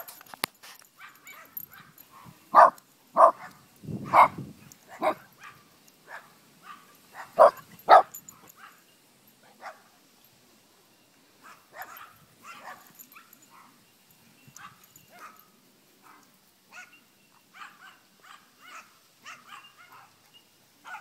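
Small dogs yapping and barking in play: a string of loud, sharp yaps in the first eight seconds, then many fainter, quicker yips.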